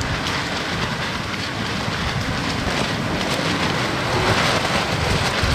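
Storm with heavy rain and strong wind: a steady, dense hiss of rain made of many small hits, with wind rumbling low on the microphone.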